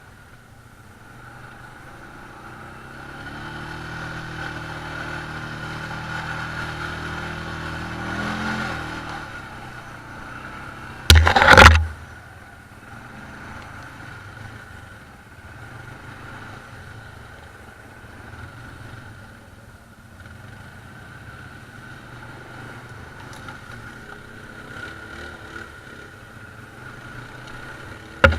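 Quad bike (ATV) engine running, its pitch climbing for several seconds as it revs up, then settling. About eleven seconds in comes a short, very loud double bang, the loudest sound here.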